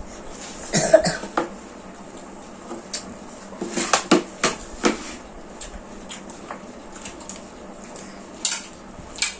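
Dishes and utensils clattering during a meal, in scattered short clinks: a cluster about a second in, a run of several around four to five seconds, and two more near the end.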